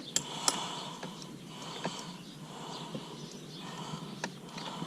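A few short clicks and taps of a plastic retaining clip being worked loose by hand, over low steady background noise.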